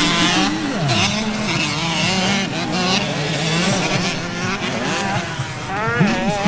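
Motocross bike engines revving, the pitch rising and falling again and again.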